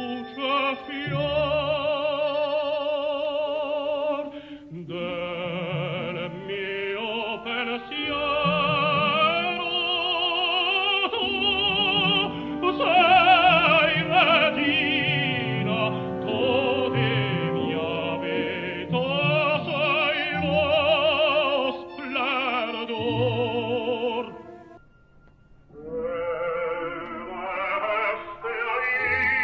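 Historic recording of a male opera singer singing with a wide vibrato. About 25 seconds in, the singing breaks off for about a second and a different sung excerpt begins.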